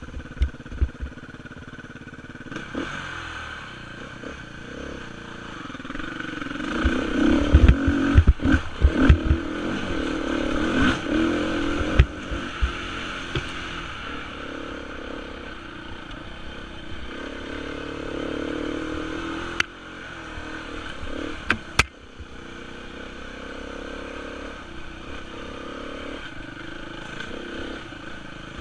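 Beta 350 enduro motorcycle's single-cylinder four-stroke engine revving up and down, heard from the rider's helmet on a rough dirt trail. A burst of loud knocks and clatter comes about a quarter of the way in, and two sharp clicks come later.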